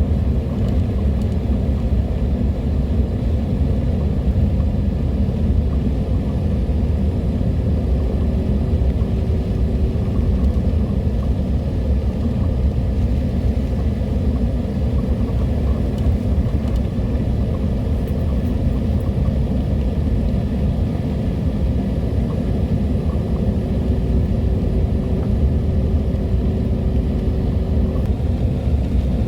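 Steady low rumble of a car on the move, engine and road noise at an even level, with a faint steady hum coming and going.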